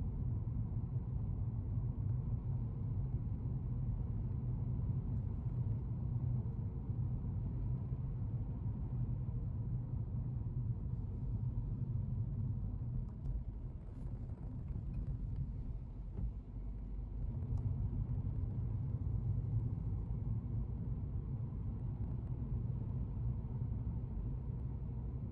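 Steady low rumble of a car's engine and tyres, heard from inside the cabin while driving, dipping briefly about two-thirds of the way through.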